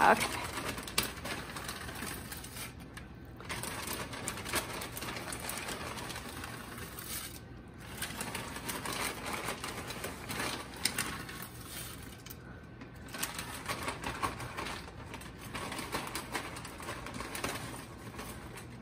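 Plastic bag of dry egg noodles crinkling as the noodles are shaken out into a pot of soup, with a spoon stirring in the pot: an uneven run of rustles and light clicks with short pauses.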